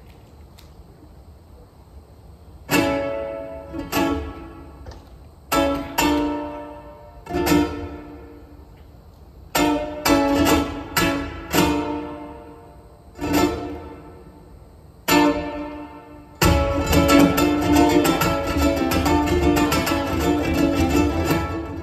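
Two ukuleles playing a duet. After a few quiet seconds they strike a series of separate chords, each left to ring and fade. About sixteen seconds in, continuous fast strumming begins.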